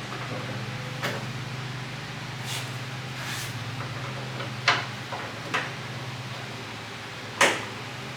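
Door hardware being handled while a door closer is fitted into a 1973 VW Thing door: scattered sharp clicks and knocks, the two loudest about halfway through and near the end, over a steady low hum.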